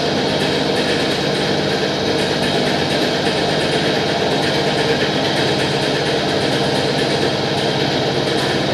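Purification machine running: a steady mechanical hum with a low tone under an even whirring noise.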